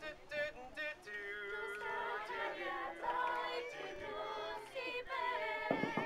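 A small mixed group of young voices singing a Welsh song unaccompanied, opening with a few short notes and then holding long notes.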